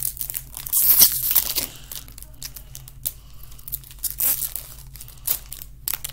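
Foil wrapper of a Pokémon TCG Chilling Reign booster pack being torn open and crinkled. The loudest tearing comes about a second in, followed by several sharp crinkles.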